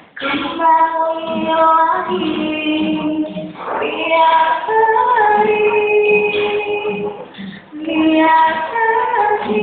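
Choir singing long held notes in a high, female-sounding register, the pitch moving from note to note, with a short break between phrases about three-quarters of the way through.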